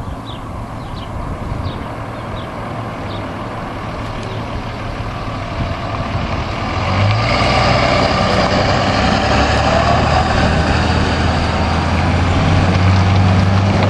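Pickup trucks towing trailers driving by, engines and tyres getting louder as one pulls through close by about seven seconds in, then a steady engine hum. A few short bird chirps in the first three seconds.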